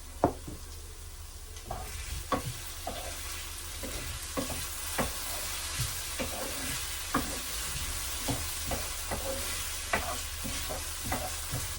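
Food sizzling in a frying pan while it is stirred with a utensil that clicks and scrapes against the pan a few times a second, the loudest knock just at the start. The sizzle grows louder about two seconds in and then holds steady.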